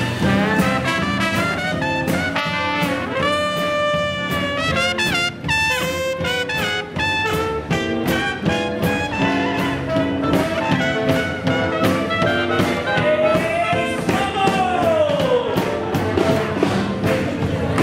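Live small hot-jazz band playing 1920s-style swing: trumpet and trombone lead with a clarinet, over double bass and drums keeping a steady beat. About fourteen seconds in, one horn holds a long note that bends up and then slides down.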